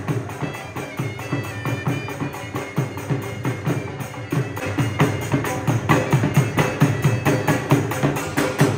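Dhol drums beaten in a fast, driving bhangra rhythm, with a thin melody line over the drumming.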